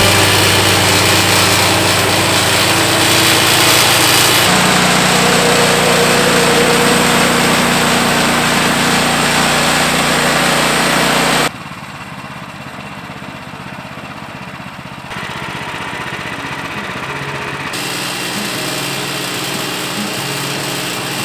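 A small gasoline engine running steadily at a constant speed. The sound changes abruptly in level and tone a few times, dropping noticeably quieter about halfway through and then rising again.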